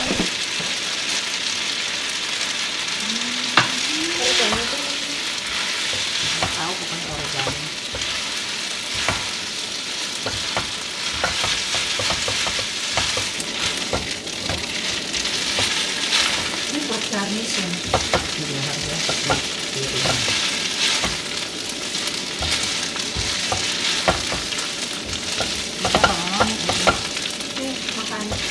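Spaghetti aglio olio sizzling in a frying pan while metal tongs toss it. There are frequent short clicks and scrapes of the tongs against the pan over a steady frying hiss.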